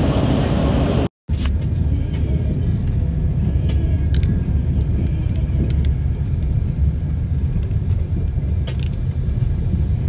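Steady low rumble of a moving vehicle heard from inside its cabin, broken by a brief cut to silence about a second in, with a few faint clicks over it.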